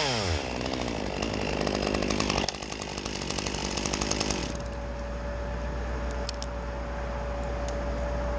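Top-handle chainsaw winding down as the throttle is let off after the cut, then running at idle with a fast, even ticking. About four and a half seconds in the idle noise drops away, leaving a faint steady hum.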